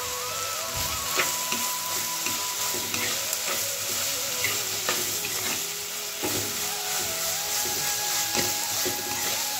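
Chopped onions and ginger-garlic paste sizzling in hot oil while a steel spoon stirs them, scraping and clicking against the pot.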